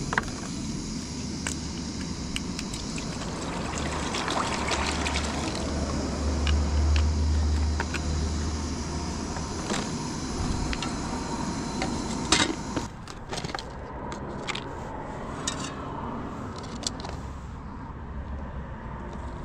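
Water heating in a pan on a portable butane cartridge stove: a steady hiss with scattered small clicks. A sharp knock comes about twelve seconds in, after which the sound is thinner.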